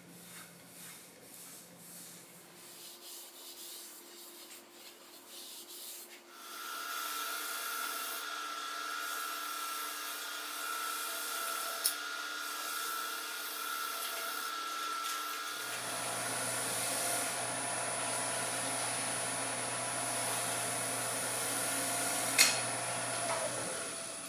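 A paper pad rubbing against a wooden bowl spinning on a wood lathe, a scratchy sanding sound. About six seconds in, the lathe's steady motor whine becomes louder, and its pitch shifts about two-thirds of the way through. Two sharp clicks stand out, one near the middle and one near the end.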